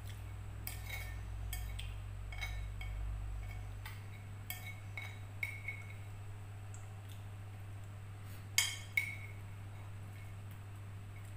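Metal spoon clinking and scraping against a ceramic plate while the last of the fried noodles are gathered up: scattered light chinks, with two sharper clinks close together about eight and a half seconds in.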